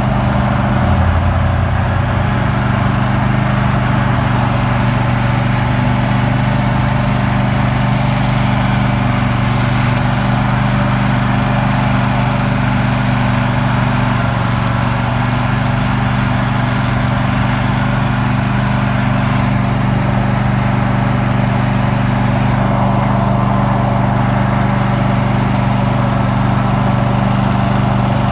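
Riding lawn mower's engine running steadily at an even pitch while the mower is driven.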